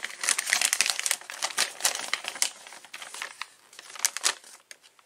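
Folded paper instruction leaflet being unfolded and handled, crinkling and rustling. The crackling is densest in the first couple of seconds and thins out toward the end, with a few sharper crinkles about four seconds in.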